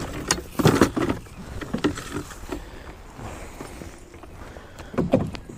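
Scattered knocks and light clatter of gear being handled in a small boat, the loudest a few sharp knocks near the start and again near the end.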